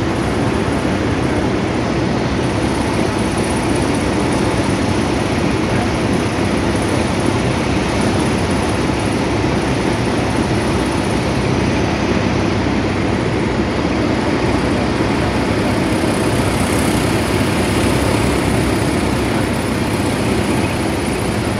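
Cessna 172's piston engine and propeller running steadily at reduced power, with rushing airflow, heard inside the cockpit during final approach and landing.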